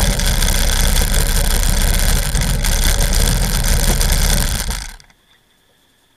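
Personal watercraft engine running close by, cutting in abruptly and shutting off after about five seconds.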